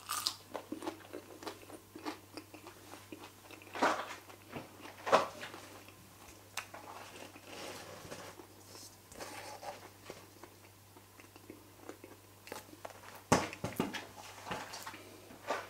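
A person biting and chewing a crisp air-fried potato chip, with scattered crunches and clicks. A few louder knocks and handling sounds come in, the loudest about thirteen seconds in, over a faint steady low hum.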